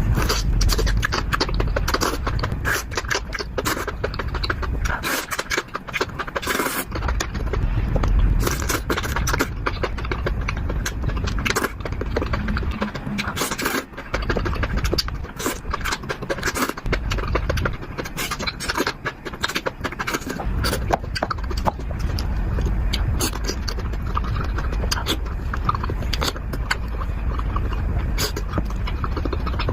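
Close-miked mukbang eating sounds: chewing and crunching with utensils scraping. It is a dense, irregular run of sharp crunches and clicks over a low rumble.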